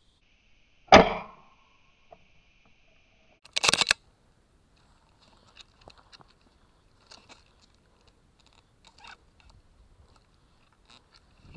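An airsoft sniper rifle shot about a second in: one sharp crack with a short tail, over a faint steady high tone. About three seconds in comes a short, loud clattering burst, then faint scattered clicks and rustling as the player moves.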